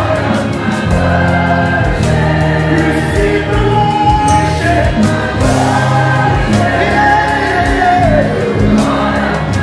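Live gospel worship song: a male lead vocalist sings into a handheld microphone, with choir backing vocals and a band with drums and bass underneath.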